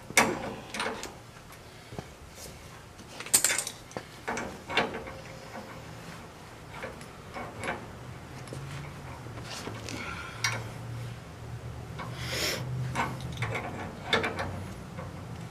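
Scattered clicks and clinks of a hand tool on the copper tubing of an old evaporator coil as its TXV is worked off.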